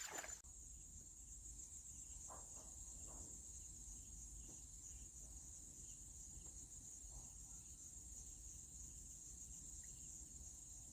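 Faint, steady high-pitched drone of an insect chorus, like crickets, over low background rumble. A louder noisy sound dies away in the first half second.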